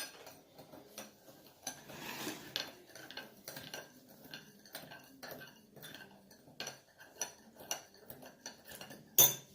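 A spoon stirring a slime mixture in a bowl: irregular clinks and scrapes against the bowl, with one sharper knock near the end.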